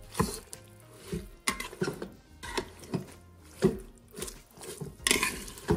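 Plastic rice paddle stirring and scraping through wet brown rice, raw chicken pieces and vegetable puree in a nonstick rice cooker pot: soft scrapes and squelches about two a second.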